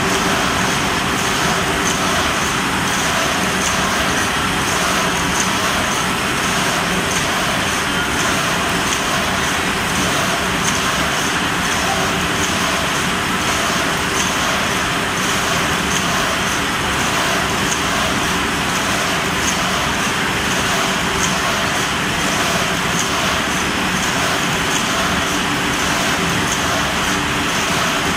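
High-speed screen printing machine running: a steady, loud mechanical noise with a low hum.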